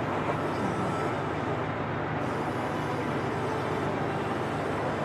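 Steady background noise of road traffic, unbroken by any distinct event.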